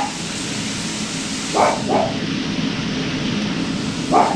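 Three short barks or yips from a small dog, two close together about a second and a half in and one near the end, over a steady hiss.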